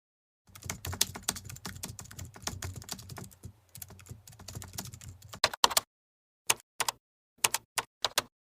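A rapid run of light clicks and taps for about five seconds, then a few scattered clicks near the end.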